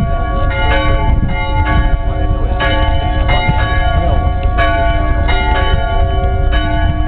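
Church bells ringing: several bells of different pitch struck one after another in overlapping succession, each tone ringing on. A steady low rumble lies underneath.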